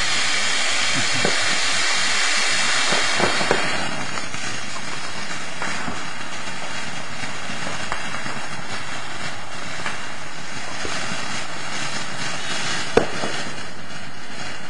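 Ground fountain firework spraying sparks: a steady hiss with scattered small crackles and one louder pop near the end.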